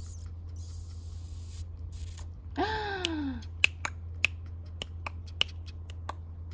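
A single short animal cry, under a second long, that arches and falls in pitch, followed by a run of irregular sharp clicks over a steady low hum.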